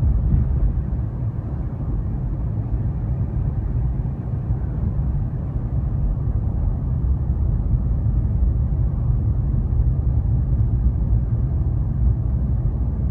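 Front-wheel-drive car driving on an icy road, heard from inside the cabin: a steady low rumble of engine and road noise.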